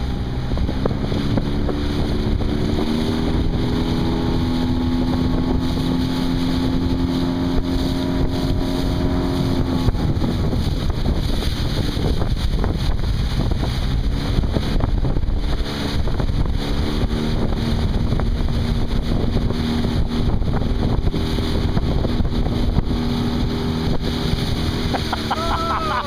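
A motorboat's outboard engine running steadily, its pitch stepping up in the first few seconds, fading out about ten seconds in and returning around sixteen seconds. Strong wind buffets the microphone throughout, with water rushing.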